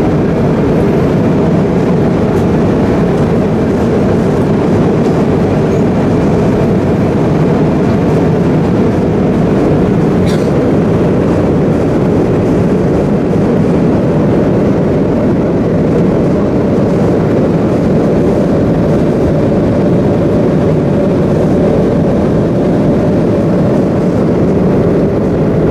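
Steady cabin noise inside a Boeing 777 airliner: an even rush of engine and airflow noise that holds at one level, with a faint click about ten seconds in.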